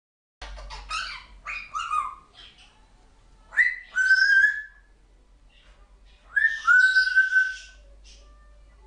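African grey parrot vocalising: a quick run of short chattering calls, then two whistles, each about a second long, that swoop up and then hold a steady note.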